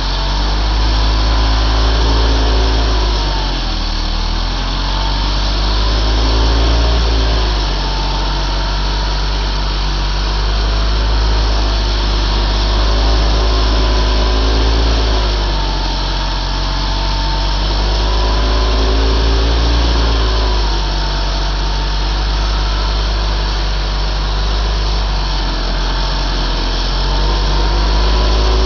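Stihl MS 361 two-stroke chainsaw running under load while flush-cutting a stump, its engine pitch slowly rising and falling every few seconds as the cut loads and eases.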